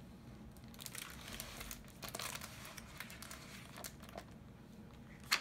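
A hardcover picture book being opened and its pages turned: faint crinkling and rustling of the cover and paper, with a sharper click near the end.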